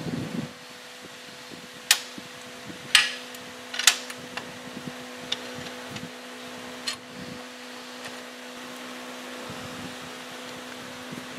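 Steel shift rods and forks inside a lathe headstock gearbox knocking and clinking as they are worked by hand: a handful of sharp metal clicks, the loudest about two, three and four seconds in, over a steady hum.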